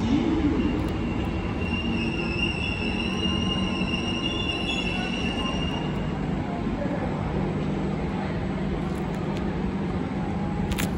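Kawasaki Heavy Industries C151 metro train braking into a station and coming to a stop. A steady rumble carries a high-pitched whine that fades out about six seconds in, leaving a low steady hum from the standing train.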